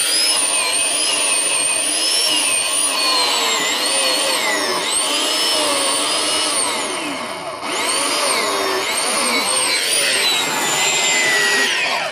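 Electric chainsaw cutting through a log: a high motor whine whose pitch sags and recovers as the chain bites into the wood, dropping briefly about seven seconds in. It stops abruptly near the end.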